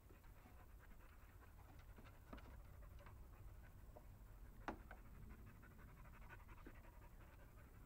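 English springer spaniel panting faintly and rapidly close by, with scattered small clicks and one sharp click about four and a half seconds in.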